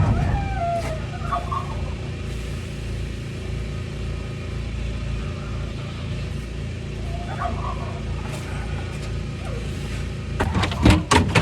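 A steady low engine-like drone, with a few short gliding calls in the first second or so and a quick run of sharp knocks near the end.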